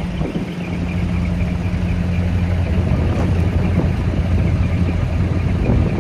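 Large diesel truck engine idling with a steady low drone that cuts off suddenly at the end.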